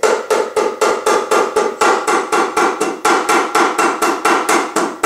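Rubber mallet lightly tapping the finned oil pan of a Mercedes-Benz M117 V8 in quick, even strokes, about four a second, each leaving a short metallic ring. The taps are meant to pop the unbolted pan free of the engine block.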